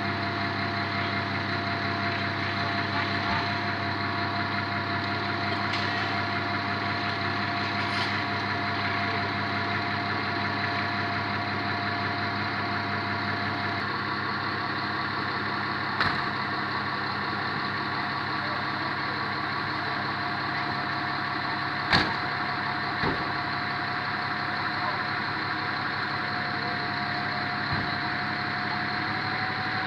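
Star fire truck's diesel engine idling steadily, with a few sharp knocks about two-thirds of the way through.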